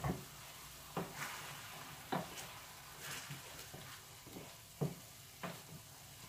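A wooden spoon stirring diced pork in a stainless steel Saladmaster skillet, knocking against the pan about six times, over a faint steady sizzle of the meat cooking in its soy sauce and vinegar.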